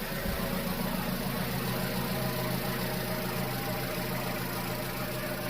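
Vauxhall petrol engine idling steadily.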